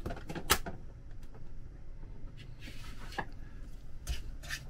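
A metal spoon knocking and scraping in a plastic mixing bowl as soft soda bread dough is stirred, a few sharp knocks, loudest about half a second in, then soft rubbing of hands in the dough.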